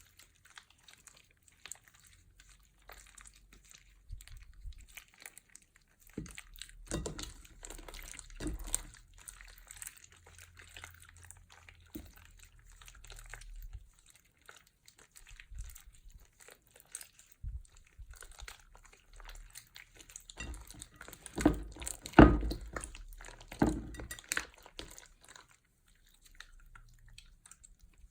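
Slime being squished, pressed and mixed by hand, with sticky squelches, crackles and plastic crinkling in irregular bursts and quiet gaps between. A louder cluster of crackles comes about three quarters of the way through.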